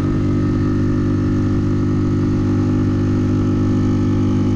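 Mercury F5 M five-horsepower four-stroke outboard running at a steady, unchanging speed while it pushes an inflatable PVC boat on the plane.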